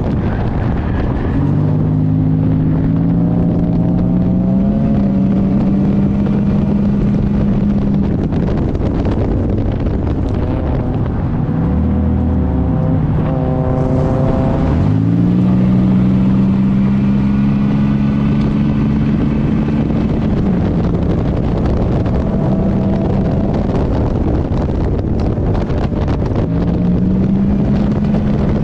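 Race car's GM engine running under load, its pitch climbing slowly and then dropping several times as the driver lifts and gets back on the throttle. Heavy wind rush on the microphone runs under it.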